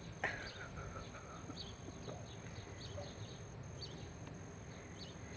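Small birds chirping: short, high chirps scattered irregularly, with one louder, sharper call about a quarter of a second in, over a low steady background rumble.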